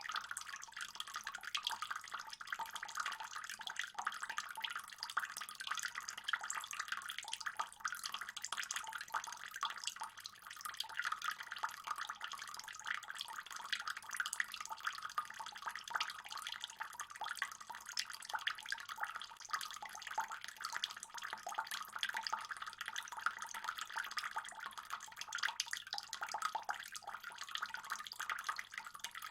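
Running water trickling and splashing steadily into a fish pond, a dense patter of small splashes and drips.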